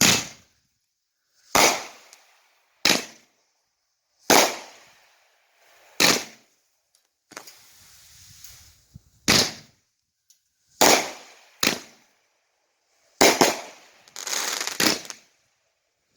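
A 350-gram consumer fireworks cake, the Brothers Pyrotechnic Princess, firing its shots: about ten sharp reports one to two seconds apart, with stretches of hissing between some of them.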